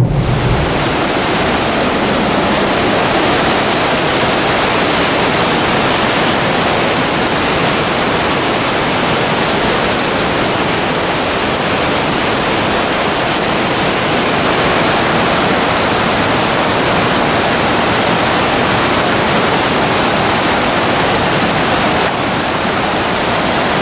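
Waterfall: a wide cascade of white water pouring over a rock ledge, making a steady, dense rush of water.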